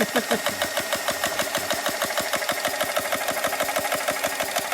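Portable 4500 psi high-pressure air compressor running under load, its piston pumping in a rapid, even pulse as it fills an airgun's air tank from empty.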